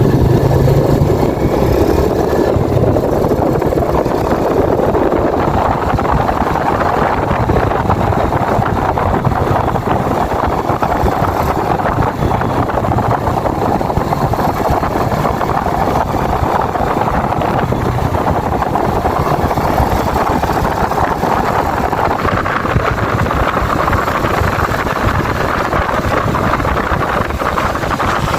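Yamaha Vega New motorcycle's four-stroke single-cylinder engine running while riding, at a fairly steady pace, mixed with road and wind noise.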